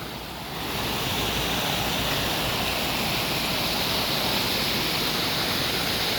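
Waterfall cascading over rocks into pools: a steady rushing of water that grows louder about a second in and then holds even.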